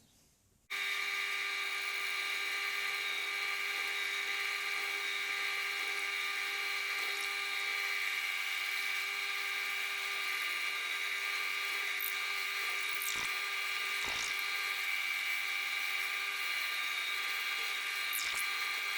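Electric drill running at a steady high whine while drilling pilot holes in wood; it starts about a second in, with a few faint knocks later on.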